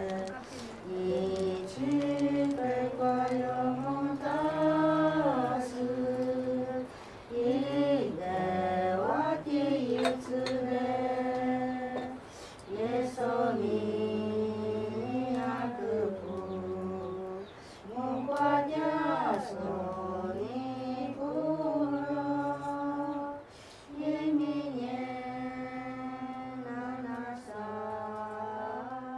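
A mixed group of men and women singing a Christian hymn together, in slow phrases with long held notes.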